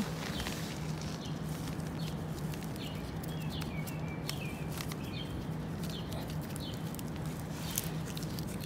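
Short, high chirps of small birds over a steady low hum, with light crackling of dry bamboo leaves being brushed and handled.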